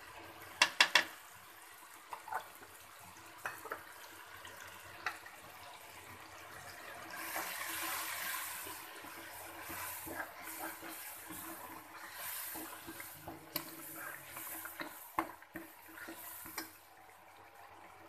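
Masala frying in hot oil in a steel pot, sizzling and bubbling, the sizzle swelling from about seven seconds in. A steel ladle clinks against the pot as it is stirred, with a quick cluster of clinks about a second in, the loudest sounds here.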